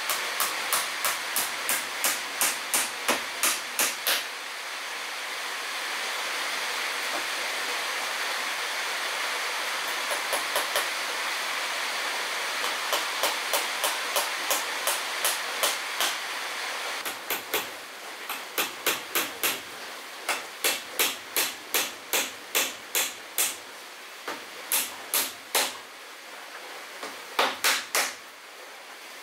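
A hammer driving nails into wooden boards: runs of quick, even strikes, about two or three a second, broken by short pauses, over a steady background hiss.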